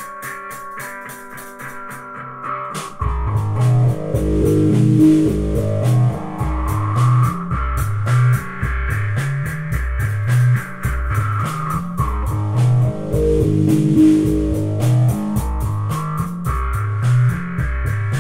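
Instrumental psychedelic rock: sustained keyboard-like tones over quick ticking. About three seconds in, drums, guitar and a pulsing low line come in loud, with a sweeping effect that falls and rises in pitch twice.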